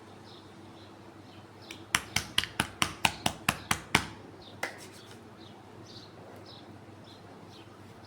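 Massage hand strikes: about ten sharp slaps of hands on skin in quick succession, about five a second, with one more shortly after. Birds chirp faintly in the background.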